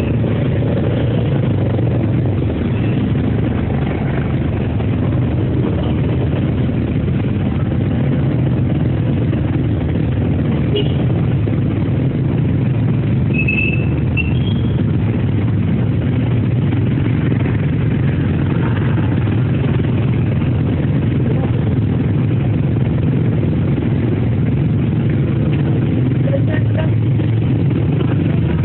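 Steady low drone of a vehicle's engine and road noise, with a few faint short high chirps a little under halfway through.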